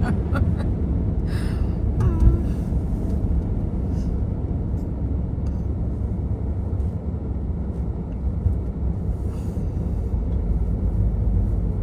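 Car cabin noise while driving: a steady low rumble of road and engine noise, with a few brief clicks in the first couple of seconds.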